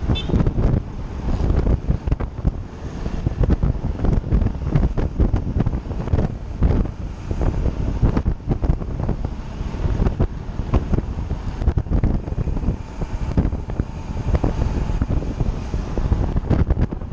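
Heavy wind buffeting on a cyclist's action-camera microphone while riding at speed, a loud, gusting rumble throughout.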